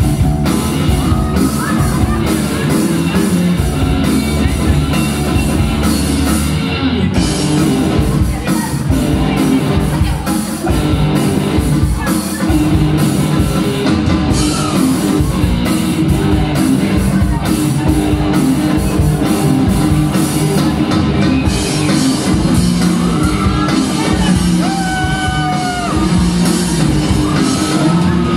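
Live rock band playing at full volume: electric guitar, bass guitar and drum kit, recorded from among the audience in a large hall.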